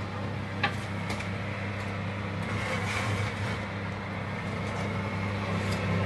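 Steady hum of a preheated electric oven running, with a few light metallic clinks as metal skewers are set on the oven's wire rack, about a second in and again near the end.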